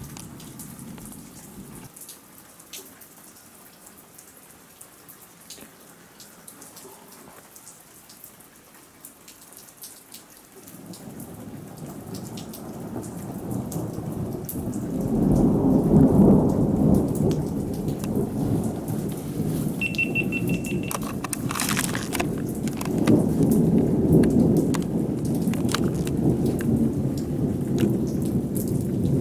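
Rain falling steadily with drops pattering. About eleven seconds in, a long roll of thunder builds up, grows loudest a few seconds later and keeps rumbling, with another swell near the end.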